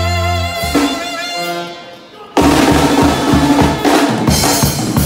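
Live band music: a long held chord, saxophone among it, breaks off about half a second in and dies away. After a brief lull the drum kit and full band crash back in at full volume with a steady beat.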